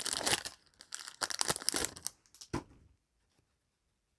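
Foil Yu-Gi-Oh! booster pack wrapper crinkling and tearing as a pack is handled and ripped open. It is a quick flurry of crackles that stops about two and a half seconds in.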